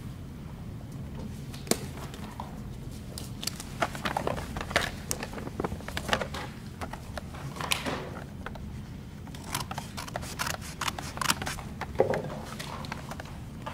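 A paper evidence envelope being handled and opened: scattered sharp clicks, scrapes and rustling over a steady low room hum.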